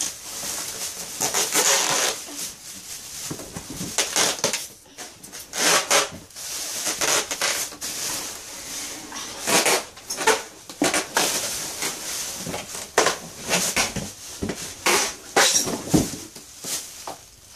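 Plastic bag crinkling and rustling in irregular bursts while a hoverboard is worked out of its cardboard box, with a few scrapes and knocks from the box.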